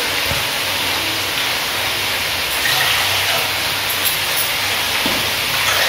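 Steady sizzling hiss of curry frying in a steel wok on a gas stove.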